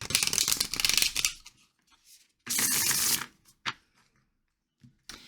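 A thick deck of tarot cards being shuffled by hand, two piles mixed together: a rapid flutter of cards for about a second, a shorter flutter a couple of seconds later, then a single light click.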